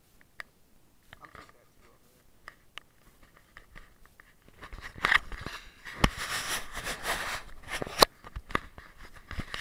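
Handling noise of a small action camera: fingers and clothing rubbing over the microphone in a loud rustle from about halfway, with sharp knocks, the two strongest about six and eight seconds in.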